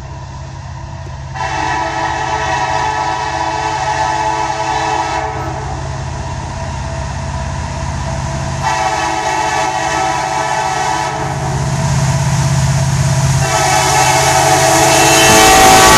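Canadian National diesel locomotive's air horn sounding three long blasts as the train approaches, the last still going at the end, over the locomotive's engine rumble, which grows steadily louder as it draws near.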